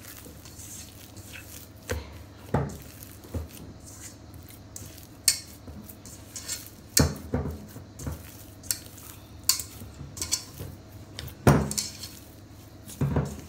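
Semolina bread dough being kneaded by hand in a stainless steel bowl: soft squishing broken by irregular sharp knocks and clinks against the metal bowl, about a dozen of them.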